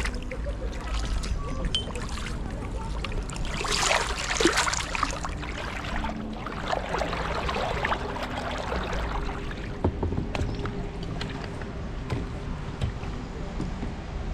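Kayak paddle strokes splashing in the canal water, in two spells of splashing about a third of the way in and again past the middle, over a steady low rumble.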